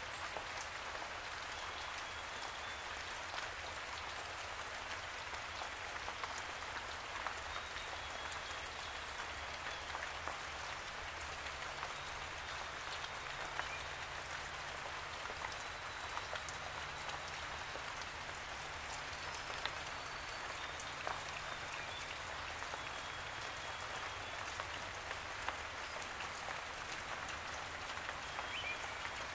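Steady rain falling through leafy woodland: an even patter of drops on the leaves, with many single drops ticking sharply now and then.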